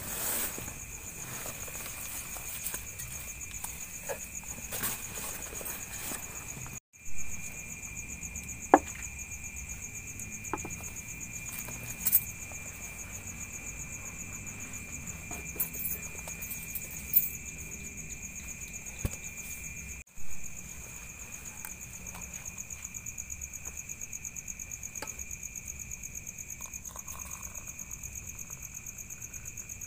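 Crickets trilling steadily at night, a high fast-pulsing chirr at two pitches, with a few sharp knocks over it.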